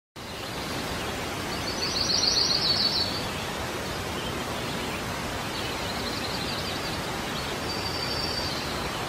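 Steady outdoor ambient hiss with small birds chirping in quick twittering runs, loudest about two seconds in and again more faintly twice later.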